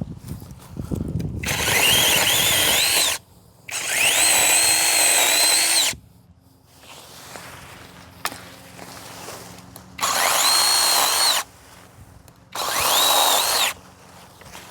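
Cordless brushless 8-inch mini chainsaw running in four short bursts while cutting branches: two in the first six seconds, two more near the end. Its motor whine rises as each burst starts and falls away as it stops.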